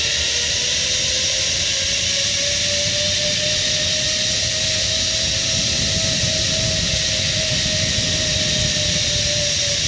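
Zip line trolley pulleys running along a steel cable: a steady whine that rises slowly in pitch as the rider gains speed and eases off near the end, over a constant rush of wind.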